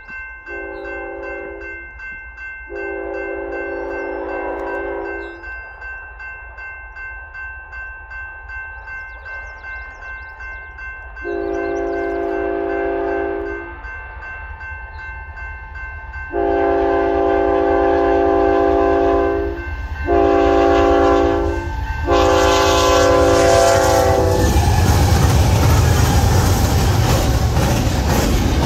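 A railroad crossing bell rings steadily while an approaching diesel locomotive's multi-chime air horn sounds a run of blasts, growing louder. The last four blasts are long, long, short, long: the standard warning for a grade crossing. About 24 seconds in, the lead BNSF locomotives pass close by, and their engine noise and the clatter of wheels on rail take over.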